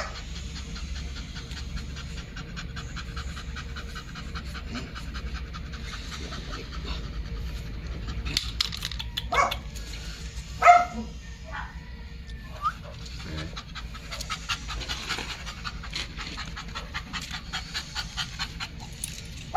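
An American bully dog panting fast and steadily, with a few short, louder sounds about halfway through.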